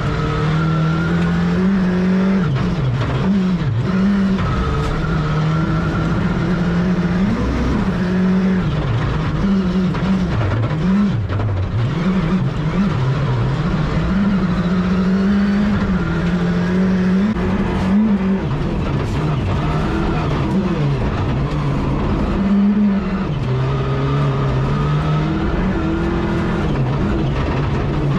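Rally car engine at full stage pace, heard from inside the cockpit, its revs climbing and dropping again and again with the gear changes and corners, over a constant rush of tyre and road noise.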